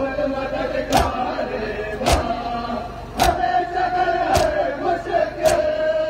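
Matam: a crowd of men beating their chests in unison, a sharp slap about once a second, six strokes in all. Under the slaps, men chant a sustained lament.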